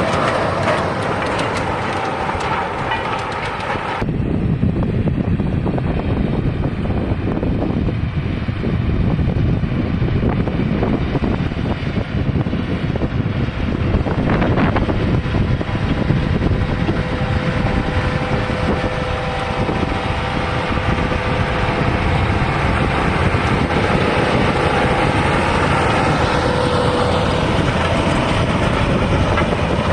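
A large John Deere tractor pulling a tillage implement across a dry field, its engine running steadily under load. About four seconds in the sound changes suddenly and the higher sounds drop away.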